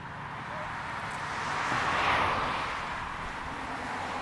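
A car driving past on the road, its tyre noise on the asphalt swelling to a peak about two seconds in and then fading away.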